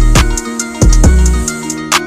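Background music with a steady beat: deep sliding bass kicks and crisp hi-hat ticks over held notes.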